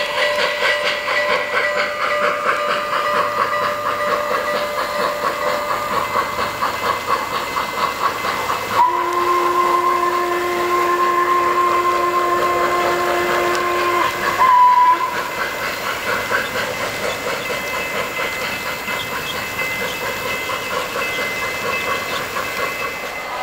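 Sound system of an O-scale Norfolk and Western steam locomotive model: rhythmic steam chuffing, with one long steam-whistle blast starting about nine seconds in and a short toot right after it. Wheels click along the three-rail track throughout.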